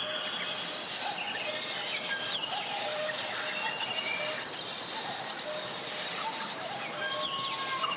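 Mountain valley stream running steadily, with many birds chirping and whistling over the water.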